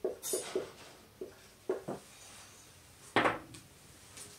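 Marker pen writing on a whiteboard: a run of short, squeaky strokes in the first two seconds, then one louder stroke about three seconds in.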